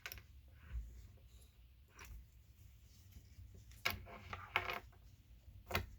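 Handling sounds of leather lace being threaded through punched holes in leather: scattered soft rustles and light clicks, a cluster of them a little after the middle.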